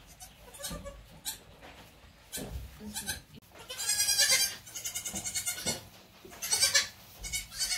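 Newborn goat kids bleating: about five short calls, one after another.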